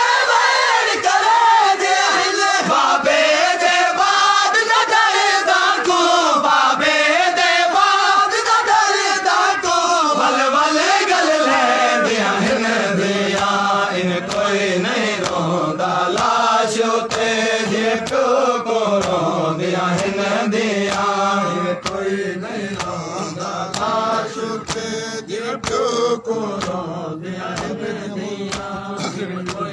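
Men's chorus chanting a noha (Shia lament) in unison, led by a reciter on a microphone, with frequent sharp slaps over the singing, from chest-beating (matam). About 12 seconds in, the chant settles into a lower, steadier line, and it grows somewhat quieter over the last several seconds.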